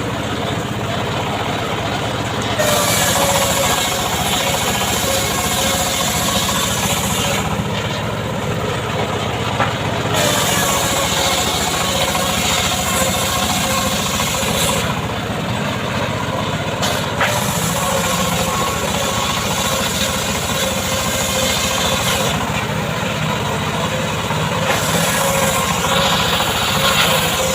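Homemade 'srekel' chainsaw running and cutting mahogany wood. Its engine revs up into four cutting bouts and drops back between them.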